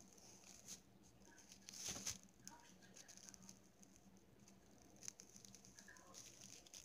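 Faint squeaks and light ticks of a felt-tip marker drawing on the thin plastic of a homemade rain poncho, with a brief louder rub about two seconds in.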